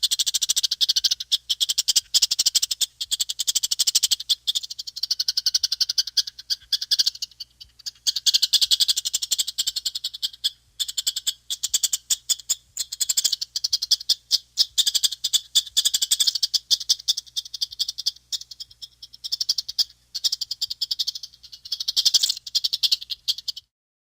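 Chipmunk chattering: long runs of rapid, high-pitched chips in bursts of a few seconds with short pauses between, stopping suddenly near the end.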